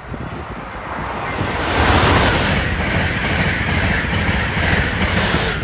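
Amtrak Acela Express high-speed trainset passing close by at speed: a rush of wheel-on-rail and air noise that builds over the first two seconds, then stays loud, a low rumble under a broad hiss.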